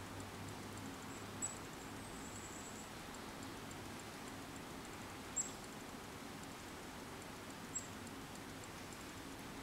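Faint outdoor ambience: a steady low hum with a few short, high chirps, the sharpest about halfway through.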